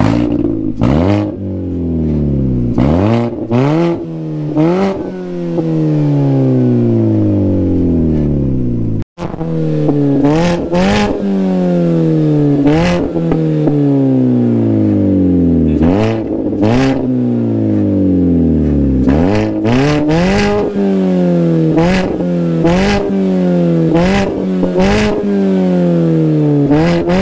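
Chevy Cruze engine through a resonator-delete exhaust that dumps out under the car, revving over and over: each rev climbs quickly and then winds down slowly over a couple of seconds, with sharp pops near the top of the revs. The sound drops out for an instant about nine seconds in.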